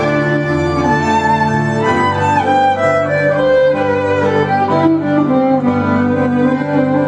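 Violin playing a melody with gliding, sliding notes over sustained low chords, in a Celtic-fusion instrumental.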